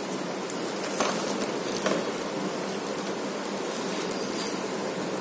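Steady hiss with a few sharp crinkles, the loudest about one and two seconds in: plastic shrink-wrap being torn and peeled off a cardboard headset box.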